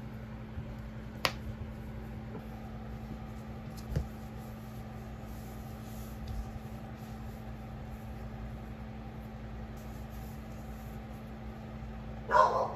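A tablet's magnetic folio case being handled: a sharp click a little over a second in, a soft knock around four seconds, and a louder brief handling noise near the end, over a steady low hum.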